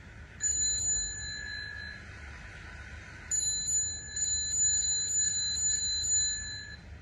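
Bicycle bell sound effect: one ring that rings out, then a quick run of repeated rings lasting a few seconds.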